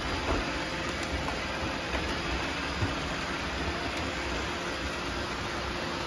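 A crowd of robot vacuums running together on a hardwood floor: a steady mix of motor whir and brush noise, with a few light knocks.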